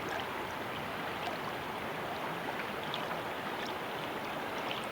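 Steady rush of river water flowing, with a few faint ticks over it.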